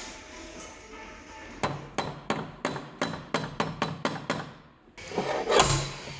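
A soft-faced hammer taps the bare steel of a Kia Ceed's dented rear wing: about ten quick strikes, three or four a second. A spotter puller meanwhile holds a welded copper wire under tension, the dent-pulling stage of the repair. A louder, longer noise follows near the end.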